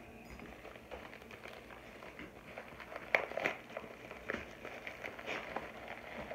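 Paper packaging being torn open and crinkled in the hands: an irregular scatter of crackles and small rips, the sharpest tears about three seconds in.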